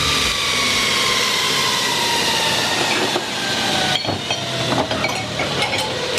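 A grinder's motor and abrasive running with a whine that slowly drops in pitch for about four seconds, as the machine spins down. Then, after an abrupt change, scattered light metal clicks and knocks as the steel knife blanks are handled.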